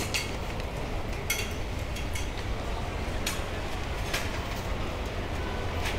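Steady low rumble of city street noise with a few sharp clicks and clinks, roughly one a second, unevenly spaced.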